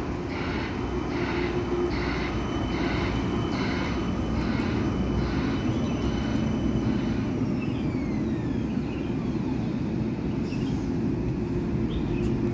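Parramatta Light Rail tram, a CAF Urbos low-floor light rail vehicle, running past close by with a steady rumble and a thin electric whine. About seven seconds in the whine glides down in pitch as the tram slows. For the first few seconds a pulsing sound also repeats about twice a second.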